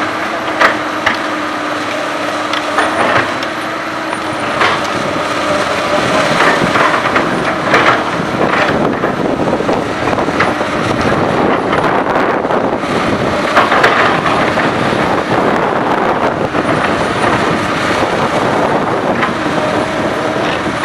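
Komatsu PC200 hydraulic excavator at work: its diesel engine runs steadily while sharp metallic clanks and knocks come at irregular intervals every second or few.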